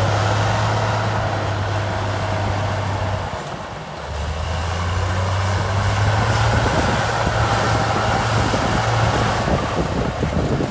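Heavy diesel engine of a piece of earthmoving equipment running steadily with a low drone, dipping briefly about three and a half seconds in before picking up again.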